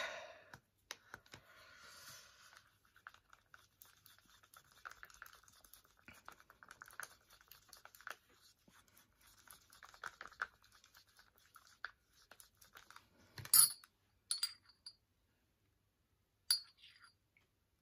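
Wooden craft stick stirring PVA glue in a small clear plastic cup: a faint, steady scraping with light ticks against the cup wall. A few sharp clinks come about three-quarters of the way through.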